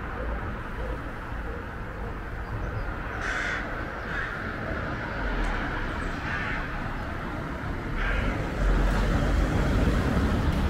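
About five short, harsh bird calls, spaced a second or more apart, over a steady low rumble that gets louder near the end.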